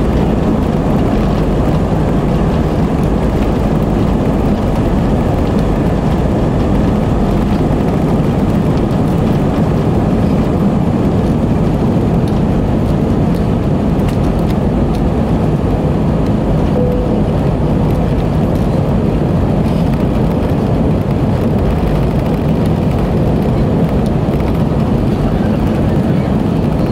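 Airbus A320 engines at takeoff thrust heard inside the cabin: a loud, steady noise with a deep rumble through the takeoff roll and initial climb.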